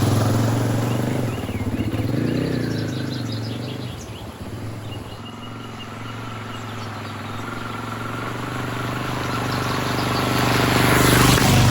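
A 2024 Husqvarna FE 501s dual-sport motorcycle's single-cylinder four-stroke engine running while being ridden. It is steady, eases off a few seconds in, then grows louder toward the end.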